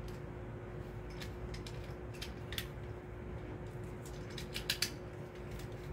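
Small plastic clicks and light rattles as a Beyblade spinning top is handled and fitted to its launcher, with a few sharper clicks near the end, over a faint steady hum.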